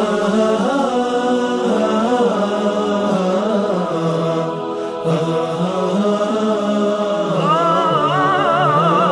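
Wordless vocal interlude of a nasheed: layered voices holding a slow melody without words. From about seven and a half seconds in, a higher voice joins with a melodic line sung with vibrato.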